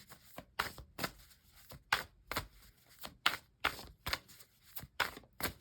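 A tarot deck being shuffled by hand: a string of short, sharp card snaps and taps, about three to four a second at uneven spacing.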